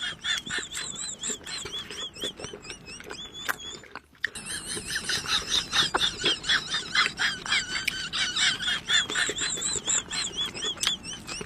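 Rapid high squeaks from small animals, many short arching calls a second with soft clicks among them, breaking off briefly about four seconds in.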